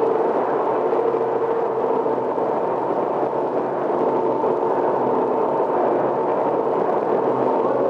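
Rotary newspaper printing press running: a steady mechanical din with a constant hum underneath.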